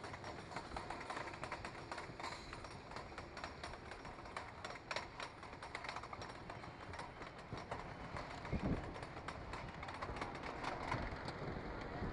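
1960s wooden roller coaster train climbing its lift hill: a steady run of clacks from the lift chain and the anti-rollback dogs.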